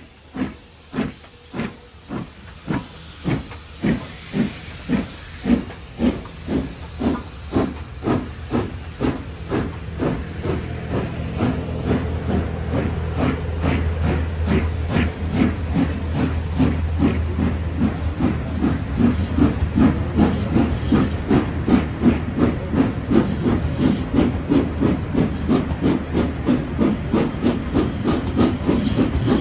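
Steam locomotive pulling away with its train: sharp exhaust chuffs that start about one a second and quicken steadily to several a second, over a hiss of escaping steam. A steady low rumble of the coaches rolling by builds from the middle on.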